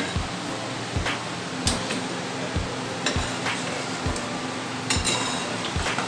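A slotted spoon clinks and knocks against a kadai several times while fried pastries are lifted out and drained, over a steady sizzle of hot frying oil.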